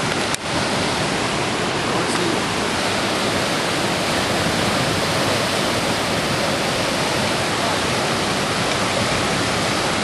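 Steady rushing of fast river water, with one short click just after the start.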